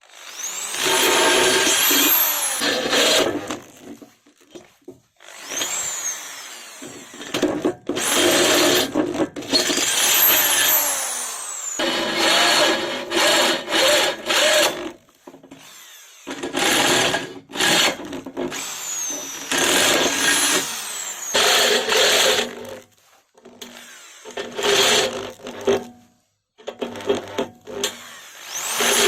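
Electric drill run in about eight separate bursts of a few seconds each. Its motor whine rises as it speeds up and falls away as it slows after each trigger release.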